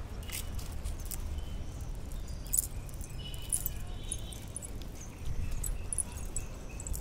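Light clicks and rattles of a cast net's chain weights and mesh being handled as fish are picked out of the net, over a low steady rumble.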